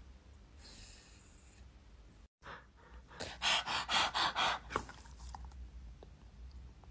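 Rapid panting, a quick run of about eight short breaths in under two seconds, then fading to faint breathing.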